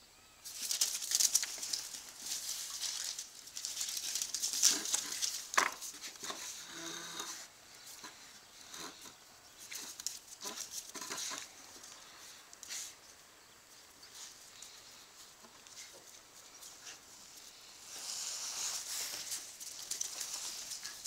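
Dogs' claws scrabbling and clicking on a ceramic tile floor as two bull terriers chase and tussle in play, coming in busy bouts with quieter spells between.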